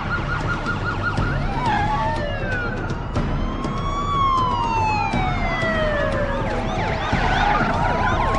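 Police car sirens, several at once: a fast yelp that ends about a second and a half in, then overlapping slow wails rising and falling in pitch. Car engines run underneath.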